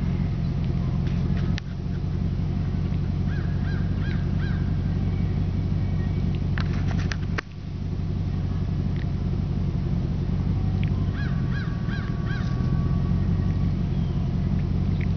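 A steady low motor hum, like an engine running at idle. A small bird calls in quick runs of four notes about three seconds in and again near the end, with a few clicks in between.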